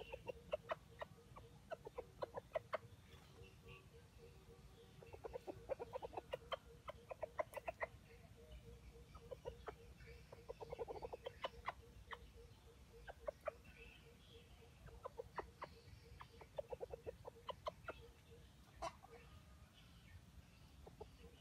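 Chicken clucking: runs of short, quick clucks coming again and again, faint, with a low steady tone underneath.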